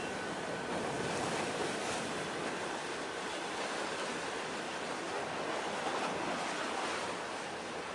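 Sea waves washing, a steady, even rushing noise.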